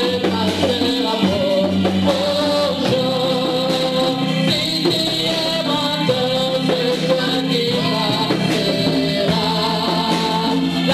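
A group of women singing a gospel worship song through microphones, with a sustained musical accompaniment underneath.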